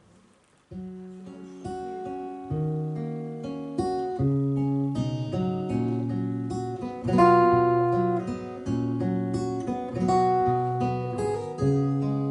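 Solo acoustic guitar playing a song's instrumental introduction. Plucked notes ring over one another, and it starts after a brief pause.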